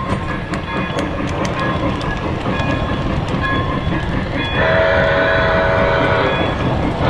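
Polar Express model train running on its track, its wheels clicking over the rail joints over a steady rumble. About four and a half seconds in, its steam whistle sounds as a steady chord for just under two seconds.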